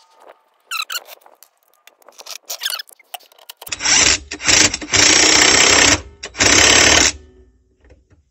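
Ratchet wrench clicking as a lower rear shock absorber bolt nut is run on: scattered single clicks at first, then loud, rapid ratcheting from about four to seven seconds in, in two long runs.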